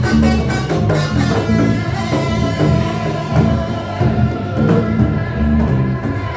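A live band playing: electric bass and a hand drum keep a steady beat under held melodic notes.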